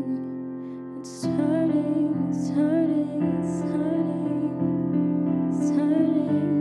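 Slow worship music: sustained keyboard chords changing about once a second, with a woman singing softly over them.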